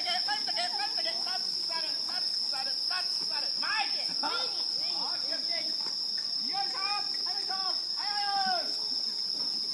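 Night insect chorus: a steady, unbroken high-pitched trill, with faint voices talking in the background.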